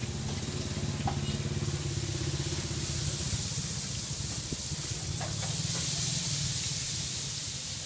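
Chinese fried dough sticks (youtiao) deep-frying in hot oil in a large metal pan: a steady bubbling sizzle that grows louder in the second half as the sticks are turned. A low steady hum runs underneath.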